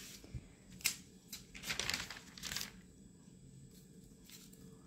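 Pages of a paper store catalogue being turned, rustling and crinkling in a few short bursts over the first three seconds or so, then only faint room noise.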